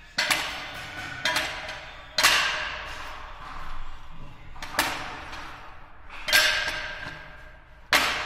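Ceramic wall tiles being tapped into fresh adhesive: six sharp knocks at irregular intervals, each ringing and echoing away for about a second.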